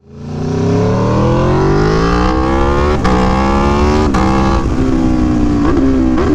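Aprilia Tuono V4 1100 Factory's V4 engine accelerating, its pitch climbing and then dropping sharply at two quick clutchless upshifts about three and four seconds in, before it settles to a steadier note, with wind rush over it.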